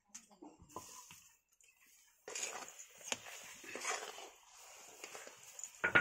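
A flat metal spatula scrapes and stirs grated coconut in a black wok while the filling bubbles and sizzles. The scrapes are irregular and start about two seconds in, after a quieter start with a few small clicks. A louder knock comes at the very end.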